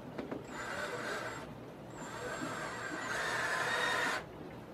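Cordless drill driving wood screws into pine support boards: two runs, one about a second long and a longer one of about two seconds that stops sharply, each with a thin high motor whine.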